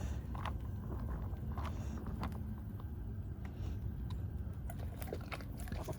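Faint crinkles and clicks of a foil dehydrated-meal pouch being handled and zipped shut, over a steady low rumble.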